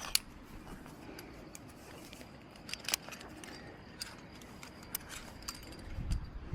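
Climbing gear clinking as a climber moves on rock: a few sharp clicks and light metal clinks scattered over several seconds, over a soft low rumble of handling and scuffing.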